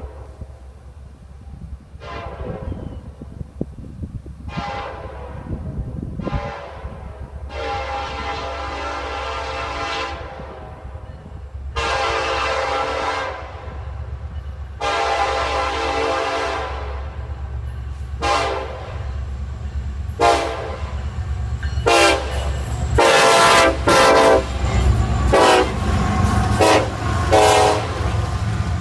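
Norfolk Southern freight train's diesel locomotive blowing its air horn in a long series of blasts as it approaches and passes: a few short ones, then three long blasts, then many short, quick blasts, the loudest near the end. Under the horn runs the rumble of the diesel engines and the train, growing louder as the locomotives come close.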